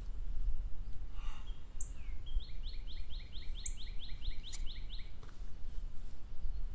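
A songbird sings a fast trill of about a dozen notes, lasting close to three seconds and starting a couple of seconds in, with short high chirps every couple of seconds. Under it runs a steady low rumble of wind on the microphone.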